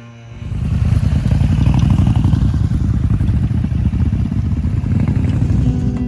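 Motorcycle engine running loudly and steadily, cutting in abruptly about half a second in.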